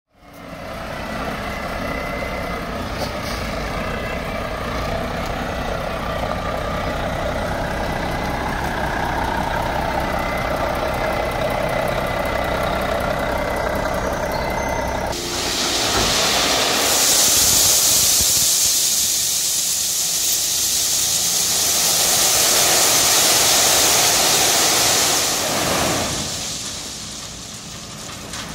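Volvo hook-lift truck's diesel engine running. About fifteen seconds in, a load of gravel pours out of the tipped container as a loud, steady rush, which dies away near the end.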